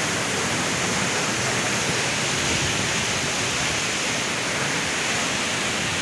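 A waterfall swollen with monsoon rainwater pouring steadily, heard as an even, unbroken rush of falling water.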